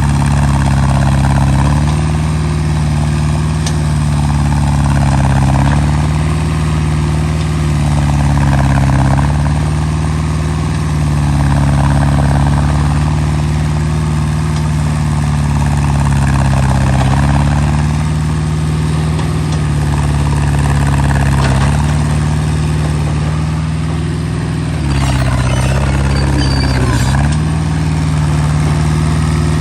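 Komatsu PC60-7 small excavator's diesel engine running steadily at working revs, its pitch dipping and recovering every few seconds as the hydraulics take load. About 25 seconds in there is a rougher, noisier stretch of a couple of seconds.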